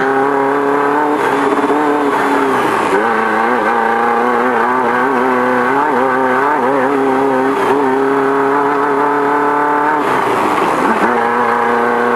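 A Beetle-based off-road race car's engine running hard at steady revs, heard from inside the car. The revs drop briefly and climb back twice, about two to three seconds in and again near ten seconds in.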